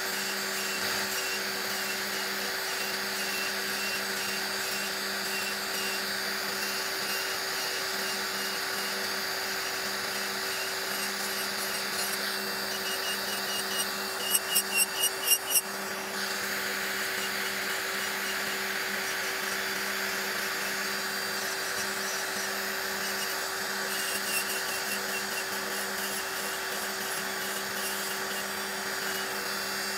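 Electric nail drill whirring steadily as its bit files gel off long nails. About halfway through there is a quick run of five sharper, louder pulses.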